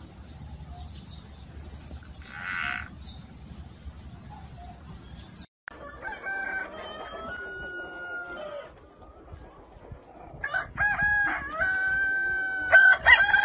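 Chickens calling, then a rooster crowing loudly near the end with a long held note. Before a sudden cut about halfway through, there is only faint background noise with one short noisy burst.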